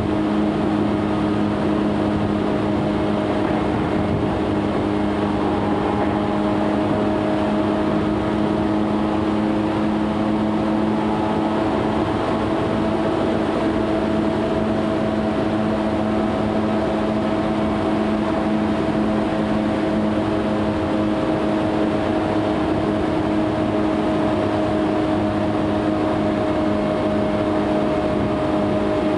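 Tokyu 8500 series electric train running at a steady cruising speed, heard inside the car: an even hum of several steady tones over the rumble of wheels on the rails, holding the same pitch throughout.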